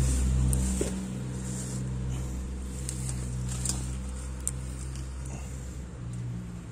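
A motor running with a steady low hum that drops off after about a second, under rustling and a few sharp knocks from the phone rubbing against clothing.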